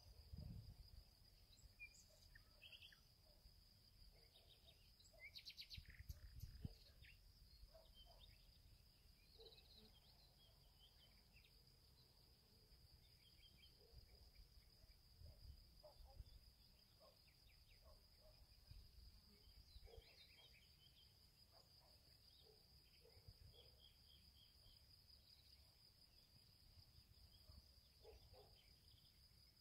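Faint wild-bog ambience: a steady high thin hum, like insects, with scattered small bird chirps. There are a few low rumbles, the strongest near the start and about six seconds in.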